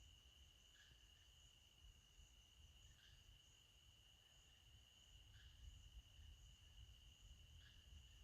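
Near silence with a faint, steady high-pitched insect drone, crickets in night woods, with a soft short chirp repeating about every two seconds.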